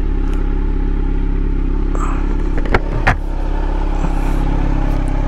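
Kawasaki Z900's inline-four engine idling steadily. Two sharp clicks come close together about three seconds in.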